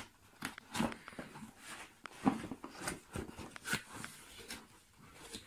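Cardboard packaging being handled and opened by hand: irregular rustles, scrapes and light knocks of box flaps and inserts.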